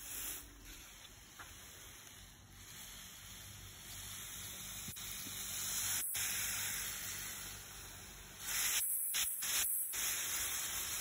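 Water spraying from a garden hose onto leafy plants and soil: a steady hiss that swells about halfway through and grows louder again near the end.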